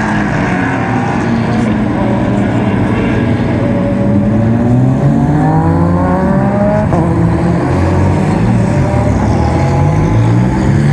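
GT2 race car engines running and revving, several at once. The pitch climbs steadily for a few seconds and drops sharply about seven seconds in, then rises and falls again.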